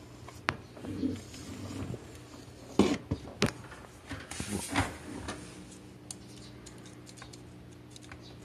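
Handling noises: a few sharp clicks and knocks, the loudest about three seconds in, with a short stretch of rustling just after, then only faint ticks.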